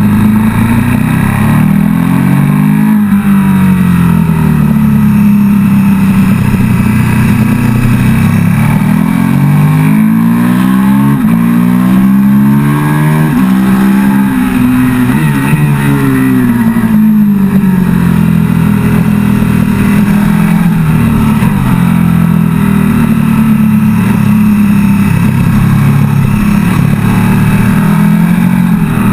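KTM 1290 Super Duke GT's 1301 cc V-twin engine heard from the rider's position at track pace, its pitch rising and falling again and again as the bike accelerates and slows for corners.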